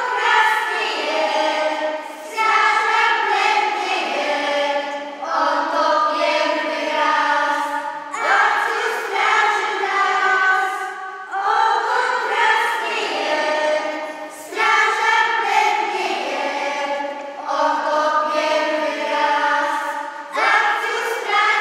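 A children's choir sings together, phrase after phrase, with a new phrase starting about every three seconds.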